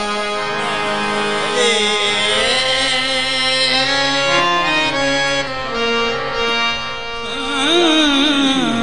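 Qawwali music: a harmonium plays a sustained, held melody, and a wavering sung line glides in near the end.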